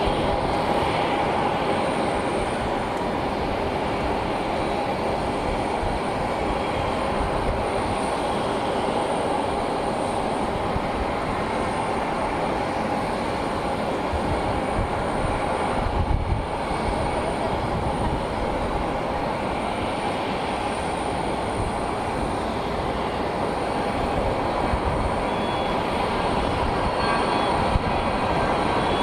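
Jet aircraft engines running steadily, a continuous rushing noise with a faint high whine held throughout.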